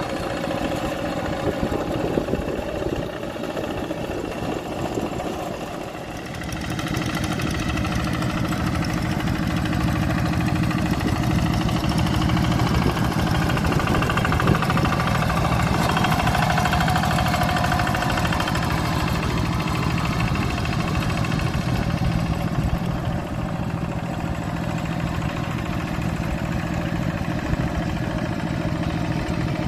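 Single-cylinder diesel engines of two-wheel hand tractors chugging steadily under load while tilling mud. The engine grows louder about six seconds in as a tractor comes close.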